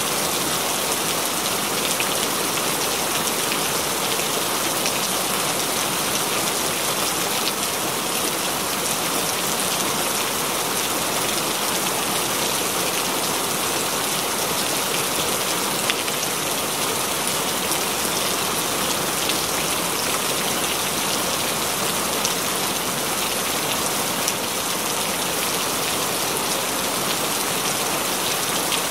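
Steady rain pattering on window glass, dense and even, with a couple of sharper single drop hits partway through.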